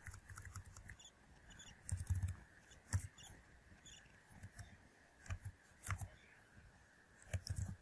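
Faint typing on a computer keyboard: irregular single keystrokes and clicks with short pauses between them.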